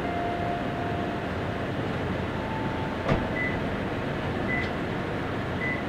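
Truck driving slowly on a rough dirt trail: steady engine and road noise, with a sharp click about three seconds in and a few short, faint high tones.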